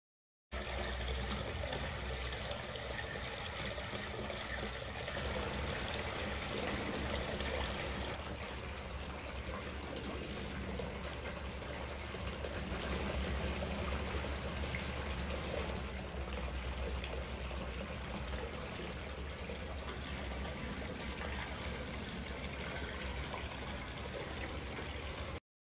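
Steady rush of running water with a low rumble beneath it; it cuts in just after the start and cuts off suddenly near the end.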